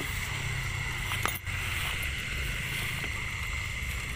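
Steady high-pitched chirring of night insects, with low rustling and handling noise from walking through grass and a single sharp click about a second in.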